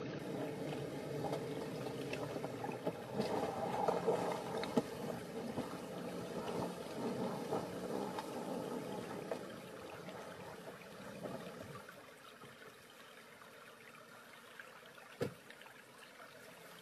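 Toyota Land Cruiser 300 crawling slowly through a shallow rocky stream: water splashing and trickling around the tyres over the low running of the engine, louder at first and fading after about ten seconds. A single sharp knock comes near the end.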